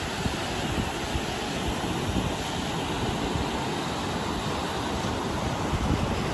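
Ocean surf washing in on a sandy beach, a continuous wash of wave noise, with gusts of wind rumbling on the microphone.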